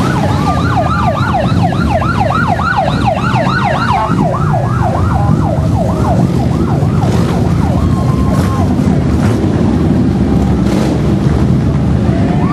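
Emergency-vehicle siren in a fast yelp, about three or four sweeps a second, fading out after about five seconds. Underneath is the steady low rumble of a column of motorcycles passing.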